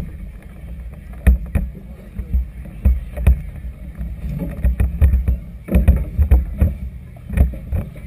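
Small waves slapping against the hull of a moored floating clubhouse in choppy water: irregular knocks and thumps, sometimes two or three a second, over a steady low rumble.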